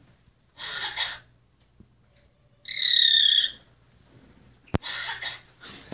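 Common grackle making its cough-like call: a short, hoarse, cough-like burst about half a second in, then a loud, high, squeaky call falling slightly in pitch around three seconds in. A sharp click near the end is followed by more raspy sounds.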